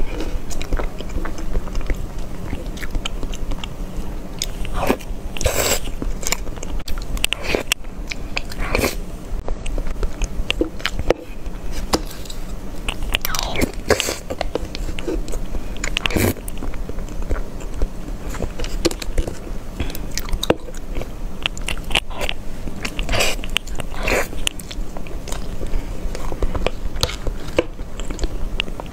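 Close-miked eating of soft cream cake from a spoon: chewing and wet mouth sounds with many short, irregular clicks.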